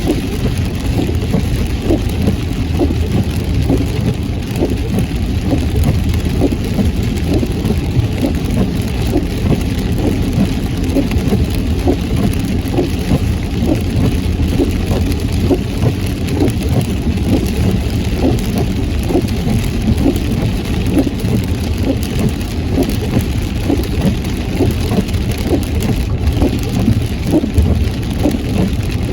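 Heavy rain hitting a car as it drives, a dense steady patter over the low noise of the tyres and engine.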